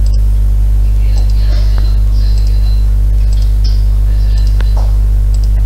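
Loud, steady electrical mains hum, with faint scattered ticks and hiss above it.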